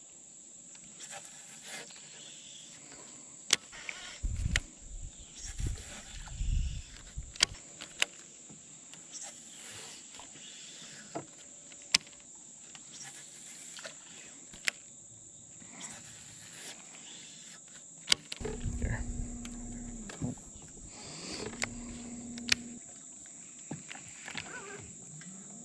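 Steady high-pitched drone of insects on the riverbank, broken by about a dozen sharp clicks from the baitcasting reels being handled and cast. In the last third, a bow-mounted electric trolling motor whines in three short runs, each rising quickly to a steady hum.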